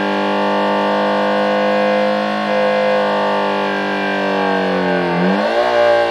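Homemade electronic engine-sound generator imitating a Subaru EJ20 flat-four with equal-length exhaust, held at high revs around 6,000 rpm in a steady drone. About five seconds in, the revs dip briefly, then climb sharply.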